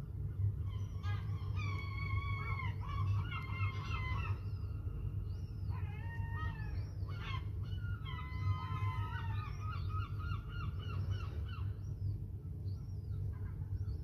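Herring gulls calling: two runs of repeated calls, starting about a second in and again about six seconds in, with a few single calls near the end, over a steady low rumble.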